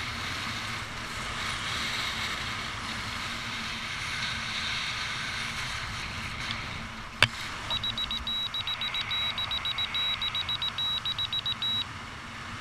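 Steady wind rushing over the microphone under an open parachute. About seven seconds in there is a sharp click, followed by roughly four seconds of rapid, high-pitched electronic beeping.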